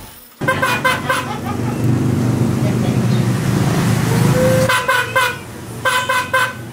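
Scooter's electric horn sounding in short toots, in three quick clusters: about half a second in, near five seconds, and near six seconds. A low steady hum runs between the first two clusters.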